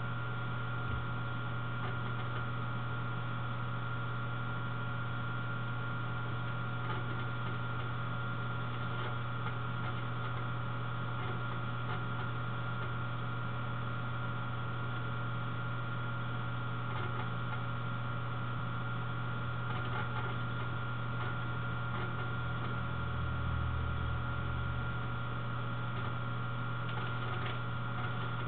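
Steady low electrical hum with a faint high whine and hiss, the recording's own noise floor, with a brief low rumble swelling about three-quarters of the way through. No speech or music.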